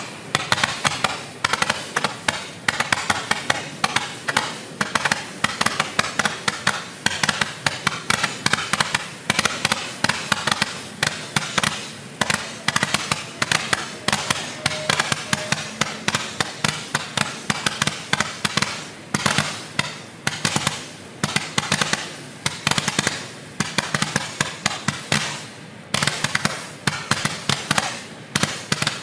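A 210-ball roman candle barrage firing colored stars in a rapid, unbroken string of pops, several a second.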